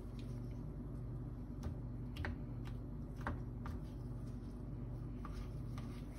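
A dull kitchen knife cutting the skin off raw chicken drumsticks: about half a dozen scattered light clicks and taps over a steady low hum.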